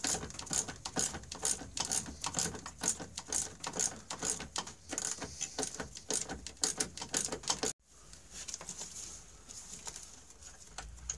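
Socket ratchet clicking in quick runs as it backs off a snowmobile engine-mount nut with a 9/16 socket. The clicking stops abruptly about eight seconds in, leaving faint room tone.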